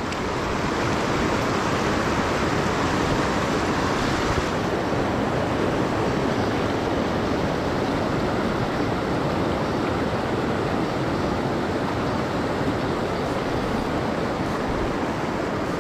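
Fast mountain creek rushing steadily over boulders in whitewater rapids.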